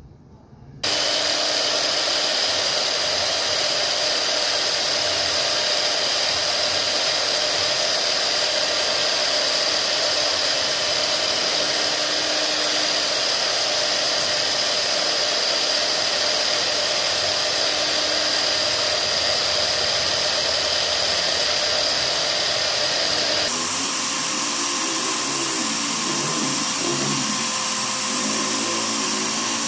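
Electric belt sander running with a rusty steel dagger blade pressed against the abrasive belt, grinding the rust off in a steady whine and rasp. It starts abruptly about a second in, and the sound shifts in tone about 23 seconds in.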